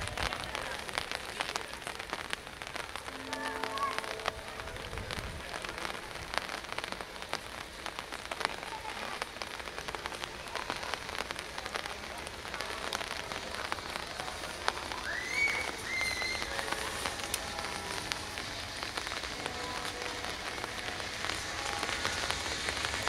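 Steady rain falling, with many small drops tapping close by. Near the end the low sound builds as the steam train approaches.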